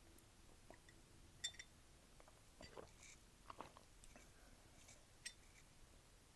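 Faint sipping and mouth clicks from drinking out of a ceramic mug, a few soft scattered clicks, with one light clink of a metal spoon against the mug about a second and a half in.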